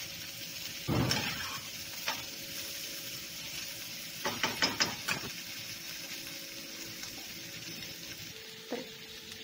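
Diced, pre-boiled potatoes sizzling steadily as they fry in hot oil in a skillet. A metal spoon stirs and knocks against the pan about a second in and several times around four to five seconds in.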